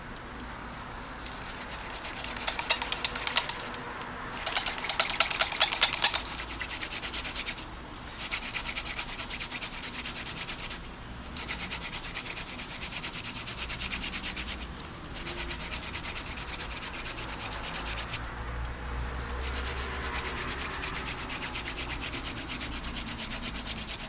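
Hand drill friction fire-lighting: a mullein spindle spun back and forth between the palms, drilling into a Swiss stone pine hearth board, making a dry rubbing sound. It comes in bouts of a few seconds with short breaks between them, and the first two bouts are the loudest, with rapid strokes.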